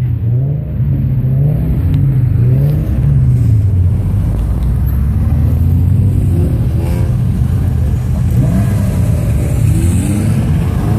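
Several car engines revving as the cars drive past one after another, the engine pitch rising and falling again and again.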